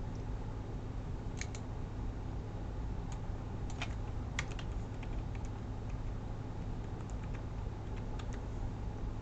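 Keys tapped on a computer keyboard: a dozen or more short, irregularly spaced clicks while numbers are typed in, over a steady low hum.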